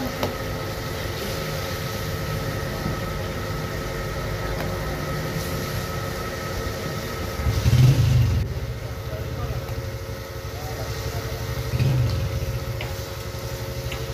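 A steady, low engine rumble with a constant hum, swelling louder twice: once about halfway through and again near the end.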